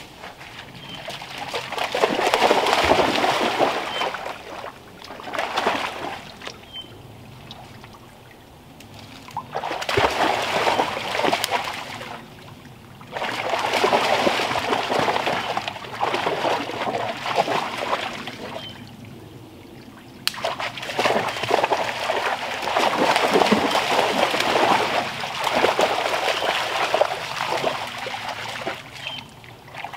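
Two dogs playing in a shallow creek, splashing and sloshing through the water in bursts of a few seconds with quieter gaps between.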